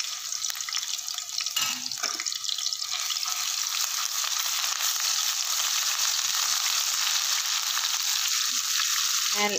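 Ground green garlic paste sizzling steadily in hot oil in an aluminium pot, stirred with a silicone spatula.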